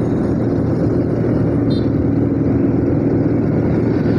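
Motorcycle engine running steadily while riding at an even speed.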